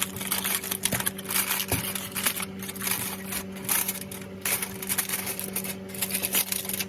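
Aluminium foil crinkling and rustling as it is peeled off a bowl, with many small irregular crackles.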